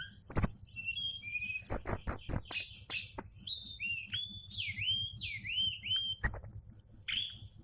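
A songbird singing a fast, varied song of sharp chirps, clicks and high trills. Midway comes a series of four down-swooping whistles less than a second apart.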